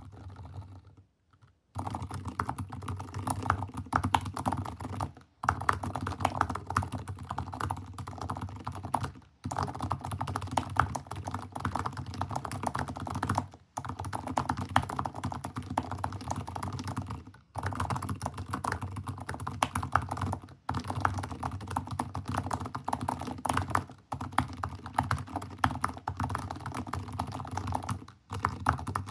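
Very fast typing on a Keychron K8 Max mechanical keyboard with TTC Silent Bluish White switches: a dense, rapid stream of keystrokes that starts about two seconds in and breaks off briefly every three to four seconds.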